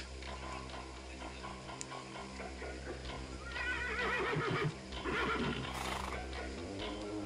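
A horse whinnying, a wavering call of about a second and a half starting roughly three and a half seconds in, over a steady low hum.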